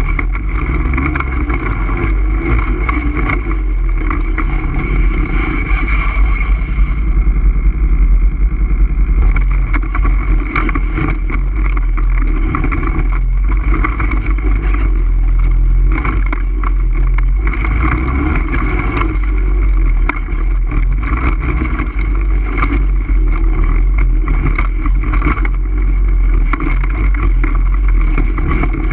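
All-terrain vehicle engine running steadily while being ridden, with a strong low rumble underneath.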